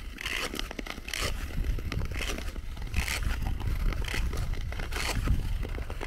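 Nordic touring skate blades scraping and gliding over lake ice: a rhythmic hiss of skating strokes, about one a second, over a low rumble.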